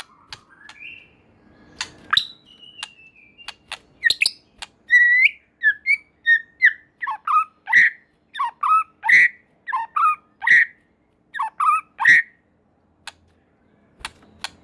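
White-rumped shama (murai batu) singing: varied clear whistles and gliding notes mixed with sharp clicks, settling in the middle into a short phrase repeated about every three-quarters of a second, then stopping near the end.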